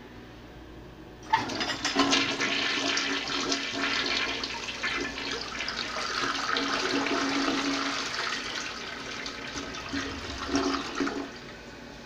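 1993 Mansfield Alto low-flow toilet flushing a load of toilet paper down. The rushing water starts suddenly about a second in, runs for about ten seconds with a last surge near the end, then cuts off as the bowl drains clear.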